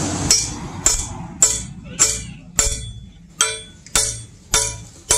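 A hand hammer striking the socket of a steel hoe head to wedge it tight on its wooden handle. The blows are steady, about two a second, and each one gives a short metallic ring.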